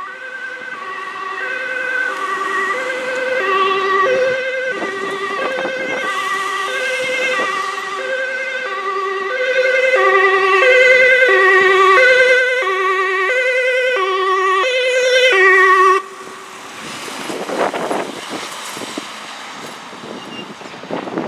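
Dutch ambulance's two-tone siren, alternating steadily between a high and a low note and growing louder as the ambulance comes closer. It cuts off abruptly about three-quarters of the way through, leaving a quieter rushing road noise.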